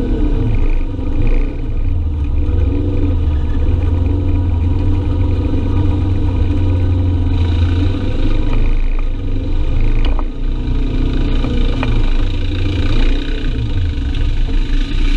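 Side-by-side UTV engine running steadily under way, a low drone with a few sharp knocks about ten seconds in.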